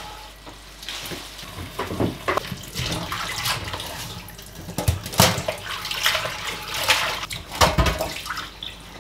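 Water running from a kitchen tap into a stainless-steel sink as leafy greens are rinsed, with a few sharp knocks and clatters of a colander and bowl against the sink, the loudest about five seconds in and just before the end.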